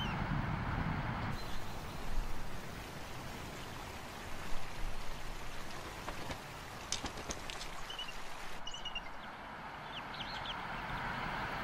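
A few short, high, thin chirps from bald eagles at the nest, over a steady hiss.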